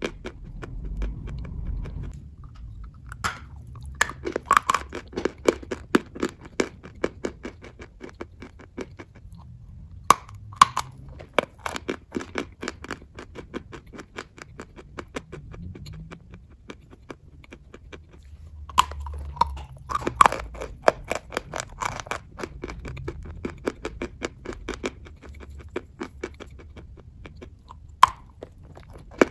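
Dry chalk being bitten and chewed: a steady run of rapid, crisp crackling chews, with a few louder, sharper cracks among them.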